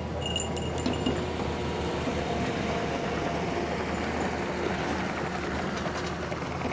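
Skid steer engine running steadily, with a few short metallic clinks in the first second or so, from the working backhoe attachment.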